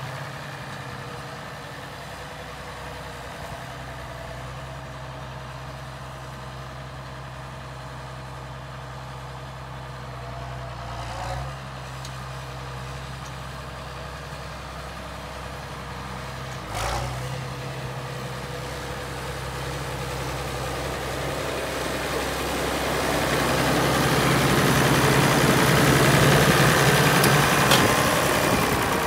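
International Farmall tractor engine running steadily as the tractor drives, with two brief knocks about 11 and 17 seconds in. It grows louder over the last several seconds as the tractor comes up close.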